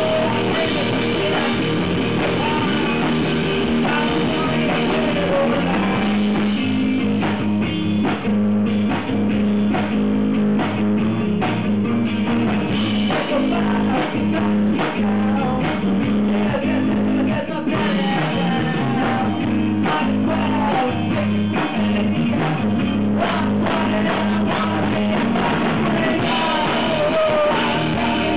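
A rock band playing live: a Gretsch drum kit driving a steady beat under electric guitar.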